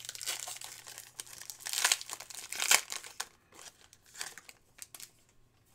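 Plastic trading-card pack wrapper crinkling and tearing as it is peeled open by hand, loudest about two and three seconds in, then quieter intermittent rustling.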